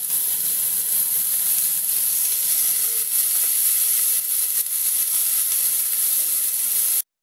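Onion, tomato, garlic and whole spices sizzling steadily in a hot pan; the sound cuts off suddenly near the end.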